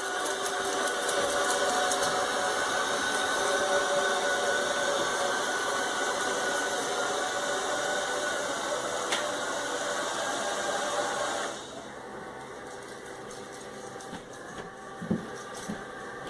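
Robot vacuum running: a steady whirring motor hum with several steady tones. About two-thirds of the way through it drops sharply to a much quieter hum, with a few light knocks near the end.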